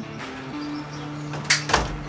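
Two sharp metallic clacks a quarter of a second apart, about one and a half seconds in, from a PCP air rifle at target practice, over background music with a steady melody.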